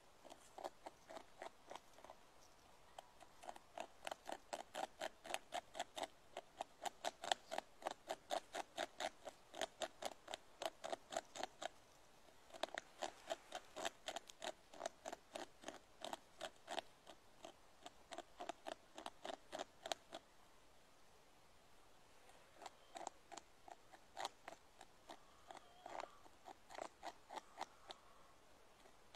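Beaver gnawing a tree trunk, its incisors chipping wood in a fast, even series of bites, about three to four a second. After a short break and a longer pause, the bites come sparser and irregular near the end.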